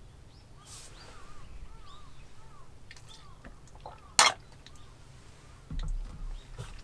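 A bird calls in a series of short arched notes. About four seconds in there is one brief, loud slurp through a drinking straw from a paper carton, then a dull knock as the carton is set down on the wooden table.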